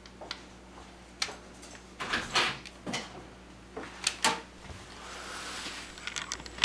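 A metal teaspoon scraping and tapping against a stainless steel saucepan as thick, hot lemon candy syrup is scooped out and dolloped onto parchment paper, in a string of short scrapes and clicks. A sharper click comes right at the end.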